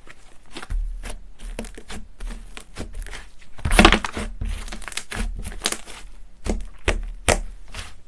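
Hands kneading and squeezing slime: a run of short clicks and crackling pops, densest and loudest about four seconds in.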